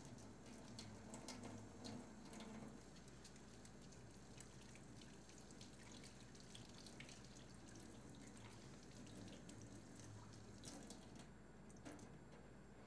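Near silence: faint room tone with light, scattered water drips and trickling.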